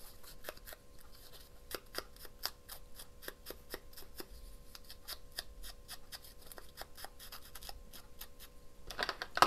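A quick series of light tapping clicks, several a second and fairly regular, from hand crafting work on paper, with a louder rustle of paper near the end.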